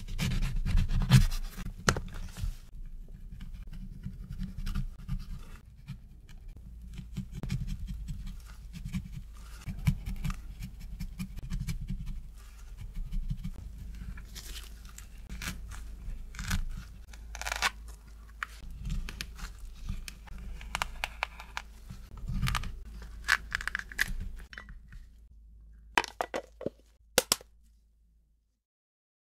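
A knife cutting through a lemon and carving into its halves on a plastic cutting board: irregular crunching and scraping of the rind and flesh, with taps of the blade on the board. A few separate sharp clicks come near the end.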